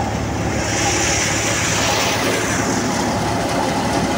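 A Massey Ferguson 240 tractor running a PTO-driven thresher through berseem clover: a steady, dense mechanical din of engine and threshing machinery. A rushing hiss swells and fades over the first couple of seconds.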